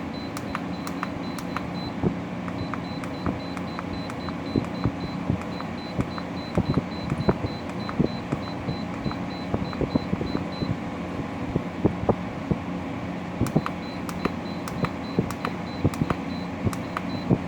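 New LG 12,000 BTU window air conditioner running on fan mode turned up, a steady hum with scattered clicks and ticks. A faint high pulsing tone runs through much of it.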